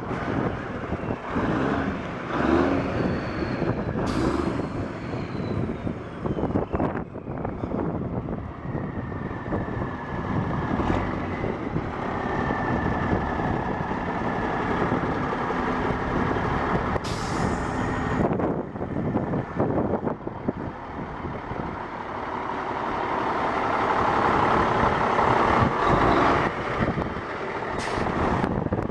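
Cummins N14 diesel engine of a 1989 International F9370 semi truck running, with a few short sharp noises and the engine growing louder about three-quarters of the way through.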